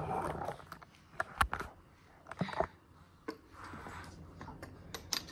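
Several light, irregular clicks and knocks of hard plastic parts, with some rustling, as the handlebar stem of a toddler's plastic balance bike is worked into its front wheel fork.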